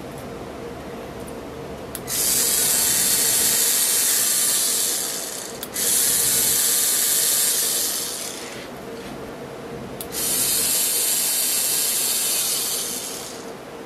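3Doodler 3D pen's filament drive motor whirring as it pushes out plastic, in three runs of a few seconds each with pauses between. Some runs start right after a short click, and a faint steady hum runs underneath.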